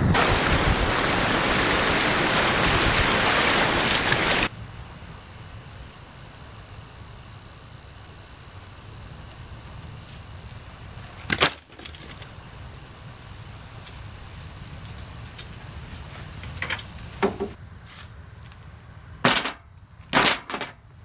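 A loud rushing noise for the first four seconds or so, then a steady high drone of insects in the bush. Near the end come a few sharp clicks as mussel shells are set down on a stainless-steel sink drainer.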